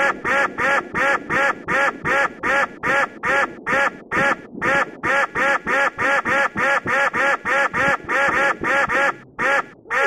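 Duck-quack sound effect repeated rapidly, about four quacks a second, with brief breaks about four seconds in and near the end, laid over a long burst of police gunfire in place of the shots.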